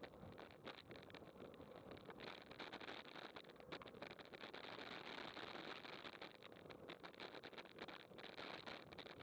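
Muffled wind and road-surface noise from a bicycle descending a paved road at about 16 mph, recorded by a bike-mounted action camera, with frequent small irregular clicks and knocks throughout.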